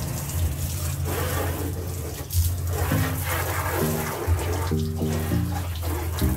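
Water from a garden hose spraying onto a car's body panels, a steady hiss, under background music with a steady bass line and shifting chords.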